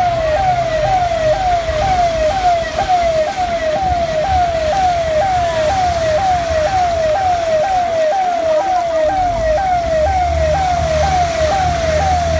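Emergency vehicle siren sounding a fast repeating yelp, its pitch sweeping about twice a second without a break, over a low rumble of traffic.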